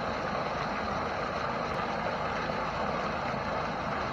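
A thick stream of water from a water truck's hose pouring steadily into a pool and splashing hard on the water surface.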